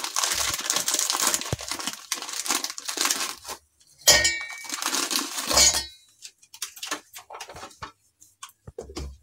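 Foil-lined plastic biscuit wrapper crinkling as biscuits are pulled out into a stainless-steel mixer-grinder jar. About four seconds in comes a louder burst of the biscuits clinking against the steel jar, with a brief ring, and a few light taps follow.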